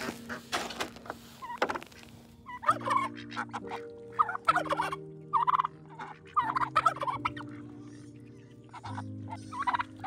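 Boots crunching on sleet-covered snow in the first two seconds, then domestic turkeys gobbling in short warbling bursts, several times through the rest.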